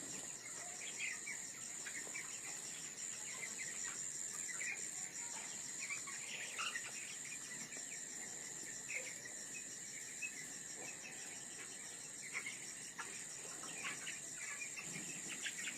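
Crickets trilling steadily at a high pitch, with scattered short peeps from chickens throughout.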